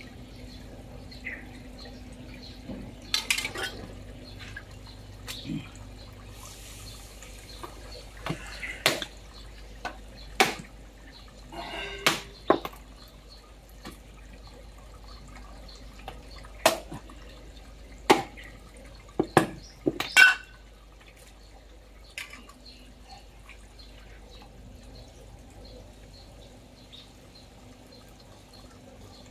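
A knife cutting through a large silver carp on a wooden chopping board: about a dozen sharp, wet knocks at irregular intervals, the loudest near two-thirds of the way through, then the cutting goes quiet.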